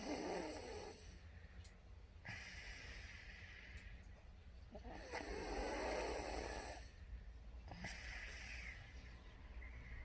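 A person snoring in slow, regular breaths: a deep rattling snore twice, about five seconds apart, each followed by a hissing breath.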